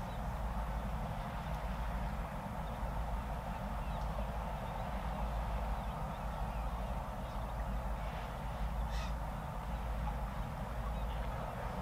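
A steady low outdoor rumble, with a few short crow-like bird calls over it, the clearest about nine seconds in.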